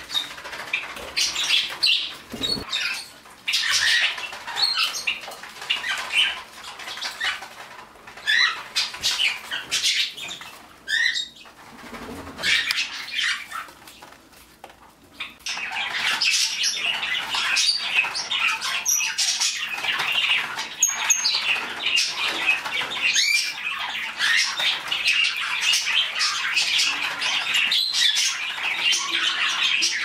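Small pet parrots foraging in a hay-filled steel tray: irregular rustling and crinkling of hay and paper mixed with scattered chirps. About halfway through, continuous busy chirping and chatter of small birds takes over.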